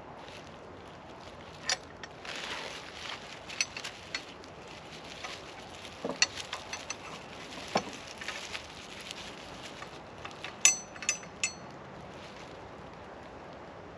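Packaging and parts being handled: scattered rustling and small clicks, then three sharp, ringing metallic clinks close together near the end.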